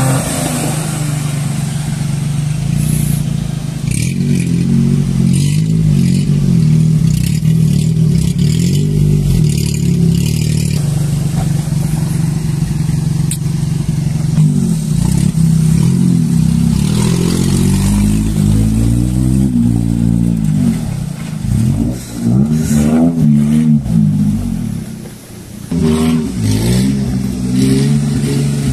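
Maruti 800 pickup's small petrol engine pulling under load through a shallow stream, steady at first, then revving up and down repeatedly with brief let-offs in the second half. Water splashes from the wheels.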